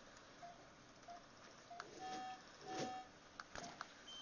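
Anaesthesia patient monitor beeping faintly with each heartbeat of the anaesthetised dog, about one and a half short beeps a second, with two longer, fuller tones near the middle. A few faint clicks of metal instruments sound alongside.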